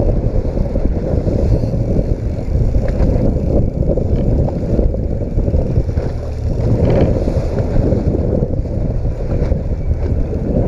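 Steady wind rumble on the microphone over the noise of a small boat at sea.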